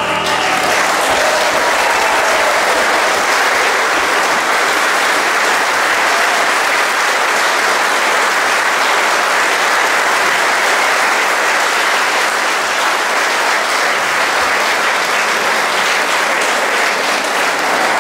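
Audience applauding steadily, a dense clapping with no break.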